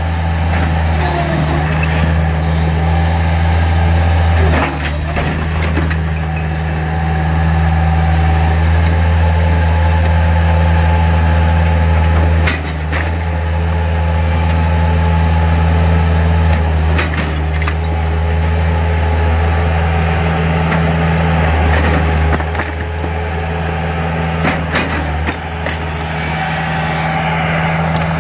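Bobcat skid-steer loader's engine running loud and steady under load, its pitch and level dipping a few times as it works. Several sharp knocks and crashes of bricks breaking away and falling as the bucket tears at a brick veneer wall.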